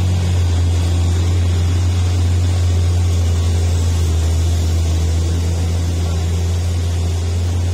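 Steady low drone of heavy diesel engines labouring up a steep hairpin climb: a loaded cargo truck and a Mitsubishi L300 pickup, with passing motorcycle and car traffic mixed in.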